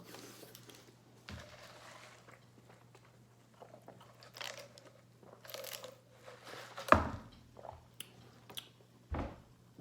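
Close-up chewing and crunching of a chicken sandwich on pancake buns, in scattered short bursts, with a sharper thump about seven seconds in and another about nine seconds in.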